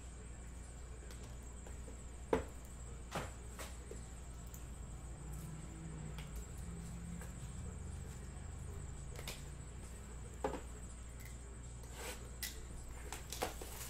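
Scattered sharp clicks and taps of a hard plastic card top loader and cardboard card boxes being handled and set down on a table, several coming close together near the end, over a steady low hum.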